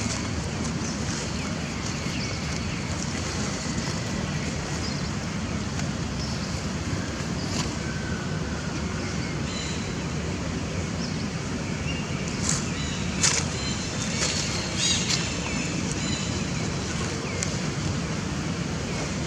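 Steady wind rumbling on the microphone, with a few faint high squeaks and several sharp clicks; the loudest click comes about two-thirds of the way through.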